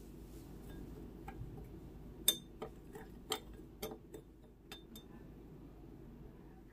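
Light clinks of kitchen utensils, about seven sharp clicks over two and a half seconds, the first the loudest, over a low steady hum.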